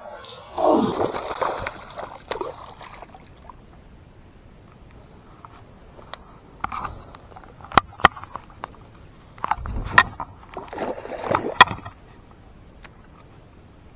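Water splashing and sloshing in a few bursts, with several sharp clicks scattered between them.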